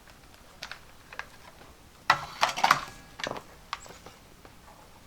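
Scattered light clicks and knocks, with a short burst of clattering about two seconds in and a few more knocks after it.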